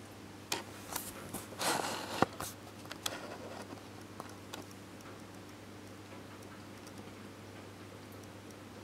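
Handling noise from the camera: a cluster of clicks and short rustles in the first few seconds, the sharpest click about two seconds in, over a steady low hum.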